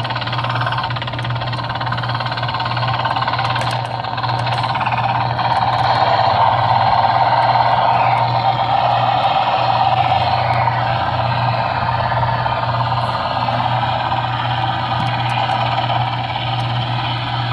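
Jolly Roger rescue helicopter kiddie ride running, giving off a loud, steady whirring hum that stays even with no breaks.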